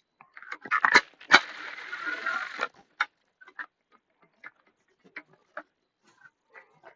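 Tool work on a screw in a motorcycle's plastic body panel: a few sharp clicks and knocks, a rough rasping noise lasting about a second from about one and a half seconds in, then light scattered ticks.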